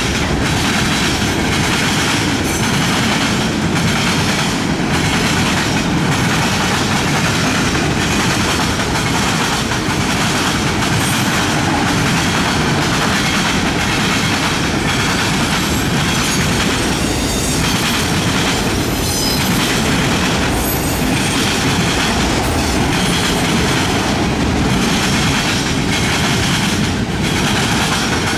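Freight cars of a fast-moving mixed freight train rolling past: a loud, steady rumble of steel wheels on rail, with a recurring clickety-clack as the wheels cross the diamond and the rail joints.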